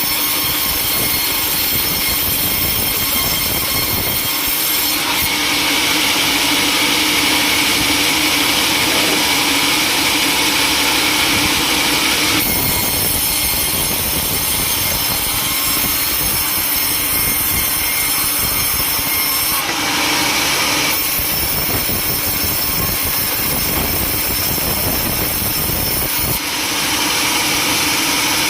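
Sawmill saw running and cutting timber: a loud, continuous rasp and whine whose tone shifts several times, with the high whine dropping in and out every several seconds.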